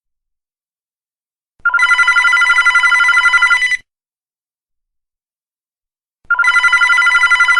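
Home landline telephone ringing: a fast-fluttering ring lasting about two seconds, a silent pause of over two seconds, then the next ring begins near the end.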